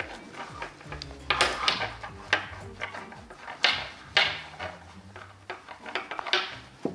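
Hands rummaging inside a cut-open doll: irregular rustling and scraping with several sharp clacks.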